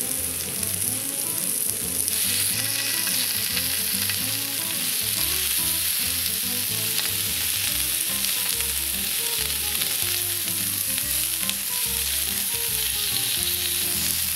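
Pieces of Hanwoo beef striploin sizzling as they sear on a hot griddle, a steady frying hiss that grows louder about two seconds in.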